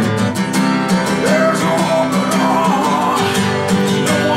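Acoustic guitar strummed in a steady rhythm, in an acoustic blues style, with a man's voice singing over it.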